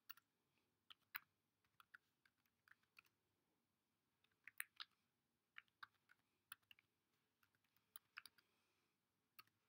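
Computer keyboard typing: faint, irregular single keystrokes with a few quick runs of keys, as shell commands and a password are typed.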